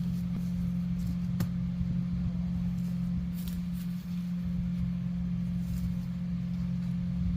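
A small engine running steadily at one even pitch, with a couple of faint knocks over it.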